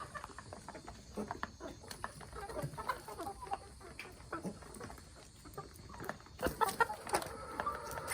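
A flock of free-range chickens clucking, a scatter of short calls that grow busier and louder about six and a half seconds in.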